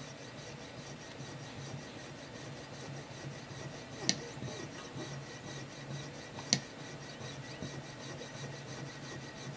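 Jeweler's saw with a fine blade working back and forth, rasping a slot into the head of a small screw held in a vise, with two sharp clicks about four and six and a half seconds in.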